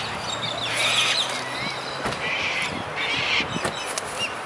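Cockatoos calling: several harsh screeches, with thinner chirps between them.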